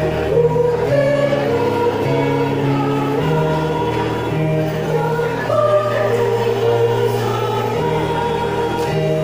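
A choir singing in harmony, mostly long held notes that move together, over an accompaniment of held bass notes that change every second or two.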